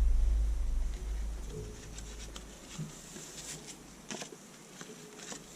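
Baler net wrap being pulled and threaded over and under the tension bars of a round baler, heard as faint rustling and scattered light clicks. A low rumble fades out over the first couple of seconds.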